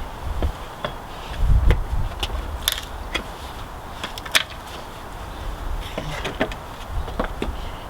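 Roughneck pallet buster levering a slat off a new wooden pallet: irregular clicks and knocks of the steel bar and the boards, the sharpest about four and a half seconds in. Wind buffets the microphone in a low rumble about a second and a half in.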